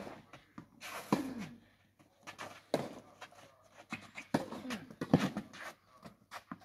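Tennis rally on a clay court: sharp pops of racket strings hitting the ball and the ball bouncing, irregularly about once a second, with short voice sounds after some strokes.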